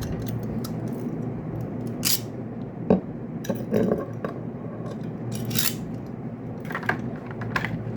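Scattered clicks, clinks and short scrapes of a small metal replica katana (the Enma sword) and its scabbard being handled, over a steady low hum.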